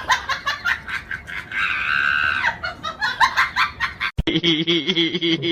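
Animal calls: a fast run of clucking clicks, about ten a second, with a held squawk in the middle. About four seconds in there is a sudden cut, then a steady, drawn-out call.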